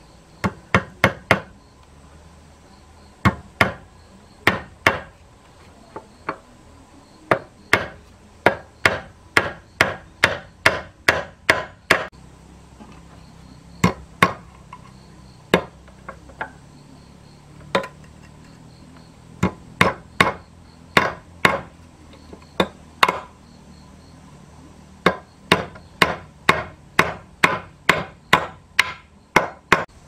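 Claw hammer driving nails to fix a steel door hinge onto a thick wooden plank: sharp strikes in runs of several at about two a second, with short pauses between the runs.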